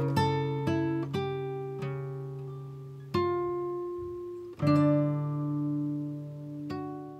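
Background music: an acoustic guitar playing plucked notes that ring out and fade, with fresh chords struck about three and four and a half seconds in.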